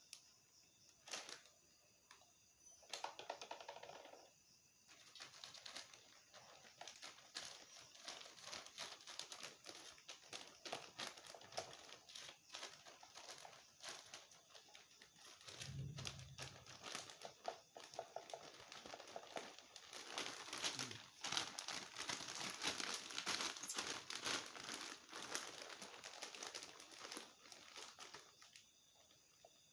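Plastic packaging crinkling as it is handled. A dense run of small crackles builds a few seconds in and eases off near the end, with one brief low thump about halfway through.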